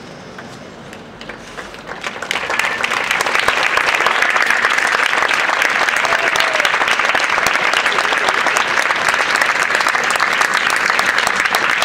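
Audience applauding: scattered claps begin about a second in and build within a couple of seconds into steady, full applause.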